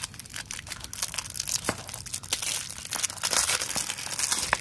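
Clear plastic wrap crinkling and tearing as it is peeled off a small cardboard jewelry box, in many quick crackles.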